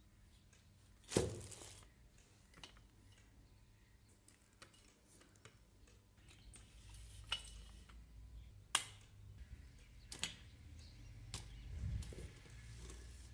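Scattered clicks and knocks from a new easel stand's legs and fittings as they are handled and unfolded. The sharpest knock comes about a second in, and there is a low rumble of handling near the end.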